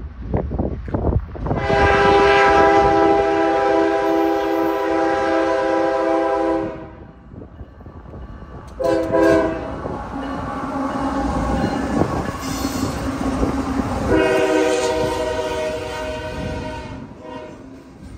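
Diesel freight locomotive's multi-chime air horn: a long blast of about five seconds, a short blast about two seconds later, then another long blast about five seconds after that as the locomotive passes close. Under it run the low rumble of the locomotives and the clatter of the train's wheels on the rails.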